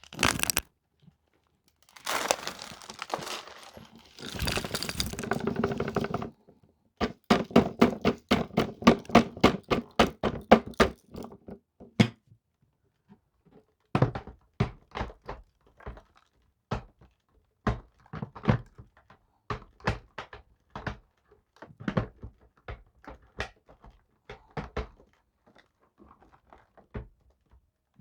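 Dry crunching and cracking: a dense stretch of crunching, then a quick run of sharp cracks about four a second, thinning to scattered single cracks. No vacuum motor is heard.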